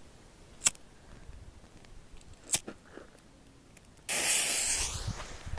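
Two sharp clicks, then a sudden loud spraying hiss about four seconds in that slowly fades.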